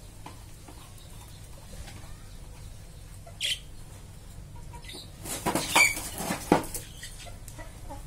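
Budgerigars in a wire cage: a short high chirp near the middle, then a flurry of wing flapping lasting about a second and a half in the latter half.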